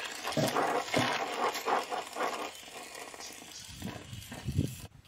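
Oxy-acetylene gas welding torch flame hissing and rushing against the steel in uneven surges. It gets quieter after a couple of seconds, with a few low pops about four seconds in, and cuts off just before the end.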